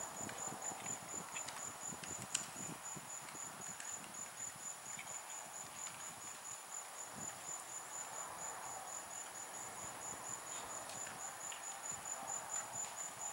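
Insects chirping steadily outdoors in a high, rapid, evenly pulsing rhythm, over the soft thuds of a horse's hooves cantering on arena sand. One sharp knock about two seconds in.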